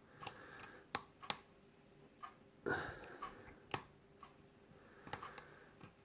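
Metal lock pick clicking and scraping against the pin stacks inside a Yale night latch rim cylinder: faint, irregular small clicks with a few sharper ones about a second in, as the pins are probed one by one under tension.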